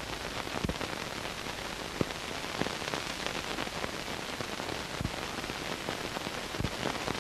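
Steady hiss with scattered crackles and pops, the surface noise of an old film soundtrack; a slightly louder pop comes about two seconds in.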